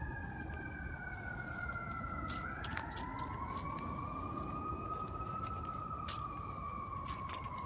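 Faint emergency-vehicle siren wailing, its pitch slowly falling, then rising about three seconds in and sinking again.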